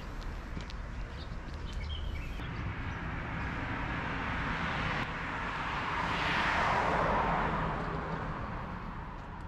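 A vehicle passing on the road, its tyre and road noise swelling to a peak about six to seven seconds in and then fading away, over a steady low outdoor rumble.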